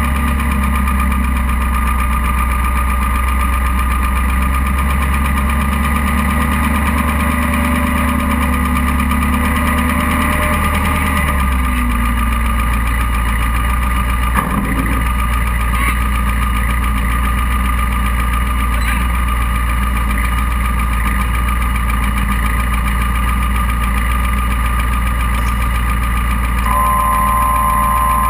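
Off-road buggy engine running steadily at idle, picked up close by an onboard camera. Its note shifts about eleven seconds in, and there is a single knock about halfway through. A steady high tone comes in near the end.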